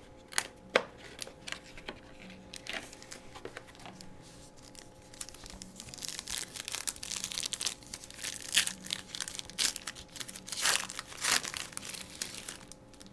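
Foil trading-card pack wrapper crinkling and tearing as it is opened by hand. A few sharp clicks come in the first second, then steady crinkling from about five seconds in, loudest near the end.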